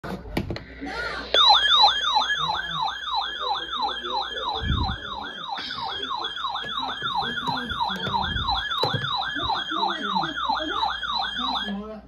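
Weather alert radio sounding its warning alarm: a loud warbling siren tone that sweeps up over and over, about three times a second, starting about a second in and stopping just before the end. The alarm signals that a severe thunderstorm warning has been received over NOAA Weather Radio.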